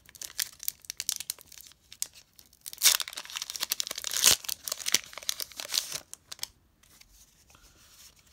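Foil wrapper of a Pokémon Sword and Shield booster pack crinkling and being torn open by hand. The loudest ripping comes about three to four seconds in, and it falls quiet after about six seconds as the cards are drawn out.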